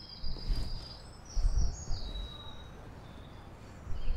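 Small birds singing in high, clear whistled notes and short falling phrases, with irregular low rumbling bumps underneath.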